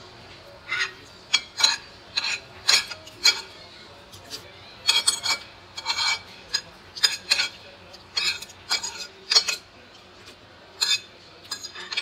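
Metal spoon and fork scraping and clinking against a ceramic plate while eating, in quick irregular strokes with brief pauses.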